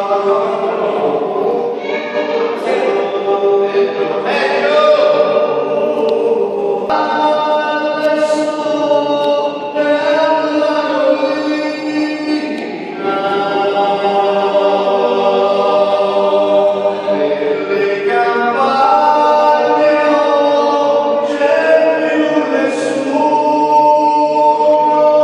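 Men's a cappella choir singing in several-part harmony, long held chords shifting every few seconds.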